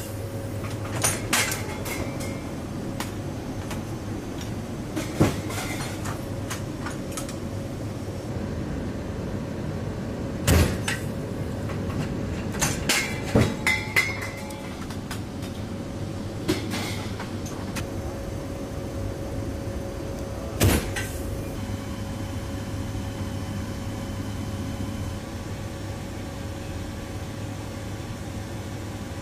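Steady drone of an AC-130J gunship's turboprop engines heard inside the cargo cabin, broken by heavy metallic clanks and thumps as crew work the 105 mm howitzer. The two loudest thumps come about ten seconds apart, with a cluster of quicker clanks between them.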